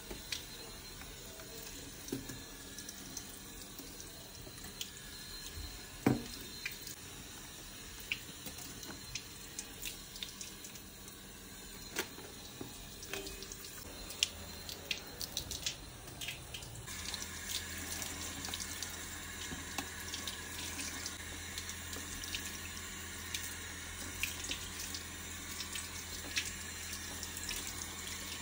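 Water running from a kitchen tap into a sink, with many small clinks and knocks. About two-thirds of the way through it grows slightly louder and a low steady hum joins in.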